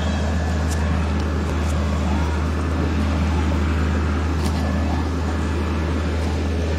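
A motor vehicle's engine running steadily, a deep even drone with a few faint ticks on top.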